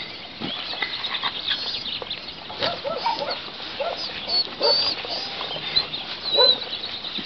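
A crowd of dogs giving short, excited whines and yelps, a string of separate cries coming thicker in the second half.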